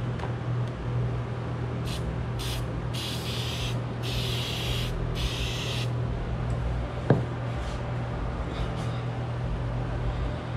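Aerosol can of 3M spray adhesive hissing in five short bursts, the longer ones about a second each, over a steady low hum. A single sharp click comes about seven seconds in.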